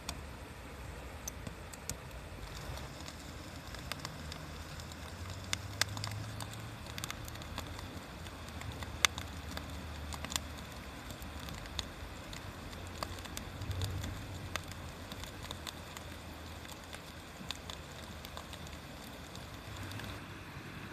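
Bonfire crackling, with irregular sharp pops and snaps over a steady hiss; a low rumble swells and fades underneath a few times.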